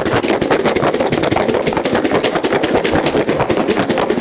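Smashed garlic cloves rattling fast and continuously inside a covered plastic container shaken hard back and forth, the shake-to-peel method for loosening the garlic skins.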